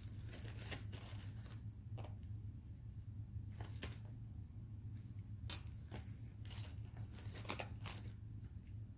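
Small plastic jewelry baggies crinkling and rustling in short, irregular handfuls as items are picked out, with light clicks of jewelry, over a steady low hum.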